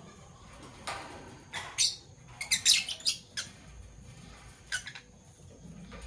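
Fischer's lovebird chirping in short, sharp, high calls, with a quick run of them around the middle.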